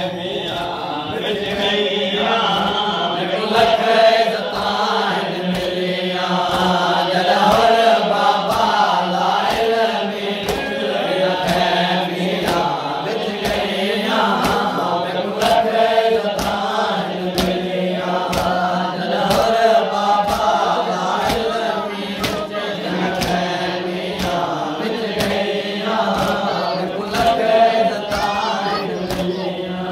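Men's voices chanting a noha, a Shia Muharram lament, in unison, with steady strikes about twice a second that fit matam, hands beating on chests.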